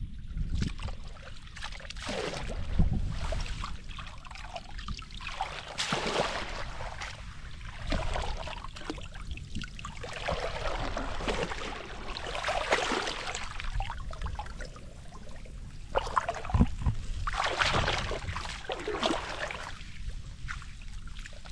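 Water splashing and trickling in uneven spells, with a few dull low knocks.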